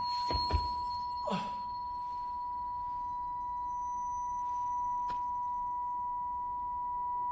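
A steady, high-pitched sine-like ringing tone, the ear-ringing effect that dramas use for pain or dizziness. Two dull low thumps come about half a second in, and a short breathy swish follows about a second later.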